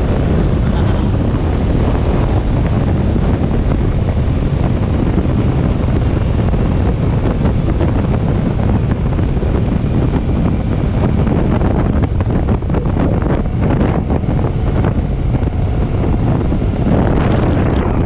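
Heavy wind buffeting on the microphone while a Suzuki M50 motorcycle cruises at road speed, with the bike's engine and road noise underneath.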